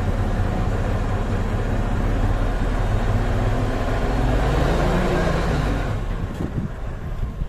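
Nissan Diesel CWB370 dump truck's diesel engine running hard with the PTO engaged, driving the hydraulic pump that tips the dump body. The revs climb, then drop back about six seconds in.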